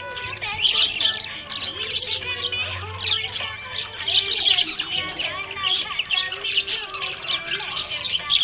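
Small pet parrots chirping and squawking without pause, several quick calls overlapping at once.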